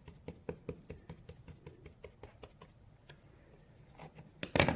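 A brush dabbing and tapping gold leaf down onto glue-coated glass: quick, light taps at about six a second that thin out after a couple of seconds. One louder knock comes near the end.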